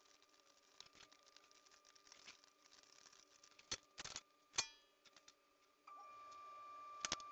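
Mostly quiet workbench with a few small clicks and knocks from hands handling the soldering iron, wire and solder spool, one of them briefly ringing. A faint steady high-pitched tone starts near the end.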